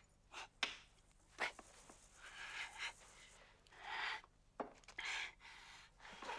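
Small clicks and knocks of tools and objects being handled at a workbench, with rubbing and breathy noises between them.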